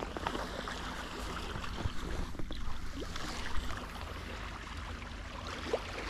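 Steady wash of sea water against shore rocks, with wind rumbling on the microphone and a few small clicks.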